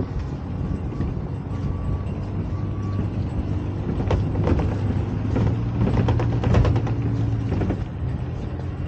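An SUV's engine pulling a boat trailer up a cobbled slipway, with a steady low drone that swells slightly in the middle, and the trailer and boat rattling and knocking over the cobbles.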